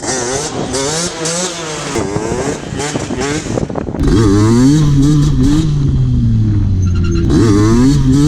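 Derbi Senda's tuned 77cc two-stroke engine revving up and down as the throttle is worked back and forth. It gets louder about halfway through.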